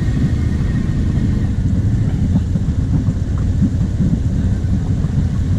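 Quad bike engines running low and steady, the nearest being the Kawasaki KVF 750 Brute Force's V-twin idling.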